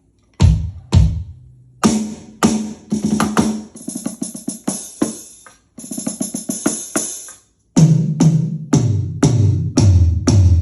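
Roland TD-6 electronic drum kit's sounds: two deep drum hits, then quick drum patterns with cymbals over them, stopping briefly twice, then a run of heavy low drum hits like toms.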